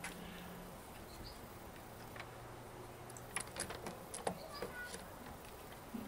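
Small metallic clicks and light rattles of a chainsaw chain, its links knocking against the guide bar as the chain is worked by hand into the bar's groove. The clicks come in a short cluster about three to five seconds in.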